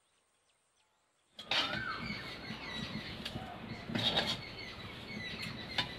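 Near silence for over a second, then a sudden busy background of crackling and ticking noise with a few short bird chirps.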